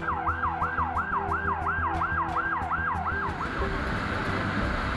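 Ambulance siren in a fast yelp, its pitch sweeping up and down nearly three times a second, which stops about three and a half seconds in; a steady rushing noise carries on after it.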